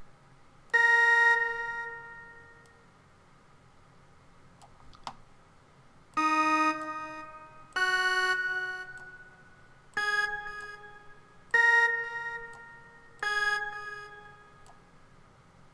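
GarageBand's Classic Techno Lead software synth sounding six single notes one at a time, each starting sharply and dying away over a second or two, with pauses between them: notes previewed as they are clicked and shortened in the piano roll.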